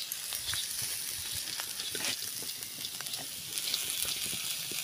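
Small shrimp frying in a little oil in an iron kadai, sizzling steadily with scattered crackles as they are turned with a wooden stick. They are fried until the whiskers and legs come loose.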